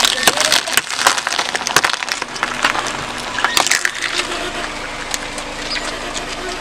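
Gold-painted eggs in a cardboard egg tray being crushed under a slowly rolling car tyre: a rapid run of sharp shell cracks and crunches, thinning out after about four seconds.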